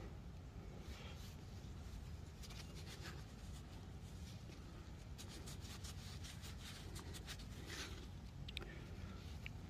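Faint scratching and rubbing as a freshly dug find, a coin, is handled and rubbed clean, over a low steady rumble. Two short high bird chirps come near the end.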